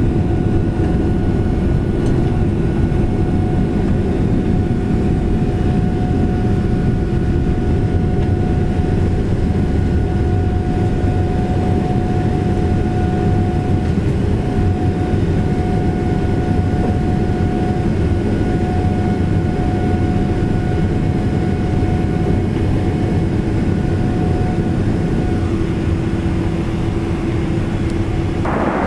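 Boeing 777 cabin noise in the climb just after takeoff: a steady rush of jet engine and airflow noise, with a few steady humming engine tones over it.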